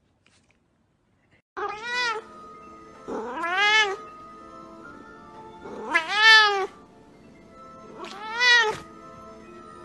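A domestic cat meowing four times, each meow rising then falling in pitch. The meows start after a second and a half of near silence, over quiet background music with steady held notes.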